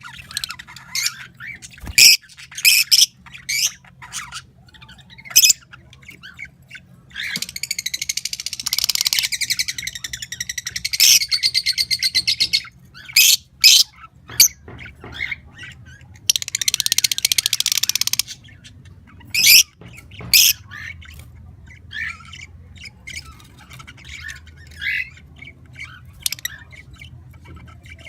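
Pet birds calling: sharp squawks and chirps, with two long spells of fast, rapid-fire chattering, one lasting about five seconds from around 7 seconds in and a shorter one around 16 seconds in.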